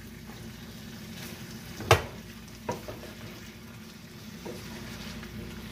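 Wooden spatula stirring beef and vegetables in a frying pan over low heat, with a faint steady sizzle. A sharp knock, the loudest sound, comes about two seconds in, with lighter knocks of the spatula against the pan after it.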